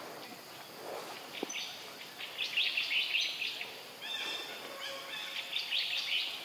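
High-pitched animal chattering calls in rapid runs, starting about a second and a half in and loudest around the middle.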